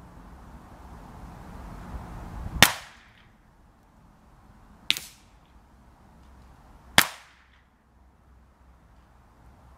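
Three shots from a Ruger 10/22 semi-automatic .22LR rifle, about two seconds apart, the middle one quieter, with a low wind rumble on the microphone building up before the first.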